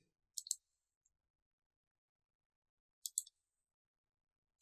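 Computer mouse clicks: a quick pair of clicks near the start and another pair about three seconds in, with silence between.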